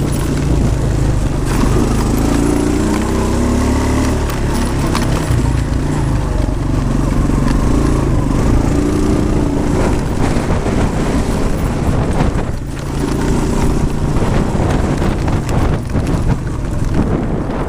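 Quad bike engine running under way, its pitch rising and falling with the throttle, with knocks and rattles over rough ground.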